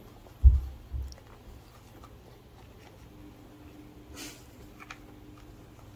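Kittens tussling on a plastic ball-track cat toy: two dull thumps about half a second apart near the start, then soft scratches and clicks and a brief rustle about four seconds in.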